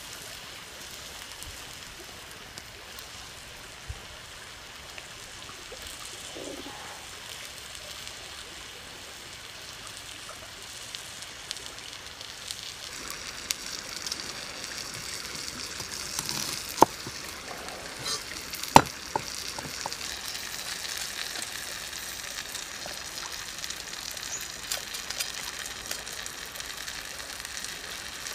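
Steady sizzling hiss of whole shrimp cooking on a hot stone slab over a wood fire, a little louder past the middle. A few sharp taps cut through it, the loudest two about two seconds apart.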